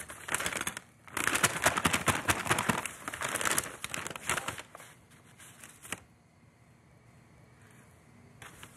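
Brown paper bag crinkling and rustling as a hand rummages inside it among flour and chicken pieces. It is loudest for a few seconds near the start and dies away about six seconds in.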